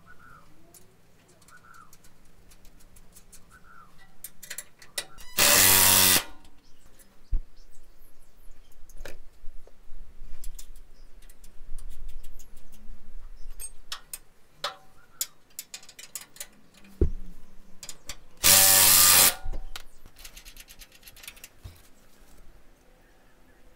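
A power tool runs in two short bursts of about a second each, a little over five seconds in and again near the end, driving the recovery point's mounting bolts tight against the chassis. Between them come scattered small metal clicks and taps of the fasteners and tools being handled.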